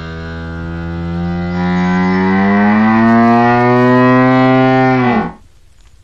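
Hippopotamus growl: one long, low call that rises slightly in pitch and stops abruptly about five seconds in.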